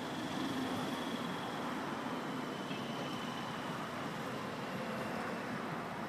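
Mobile crane's diesel engine running steadily while the crane holds a lifted wall panel.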